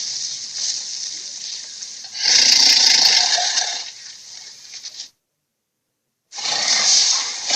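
Acrocanthosaurus creature sound effects: rasping, breathy hisses. A louder hiss comes about two seconds in. The sound then cuts off abruptly to dead silence for about a second before another hiss starts.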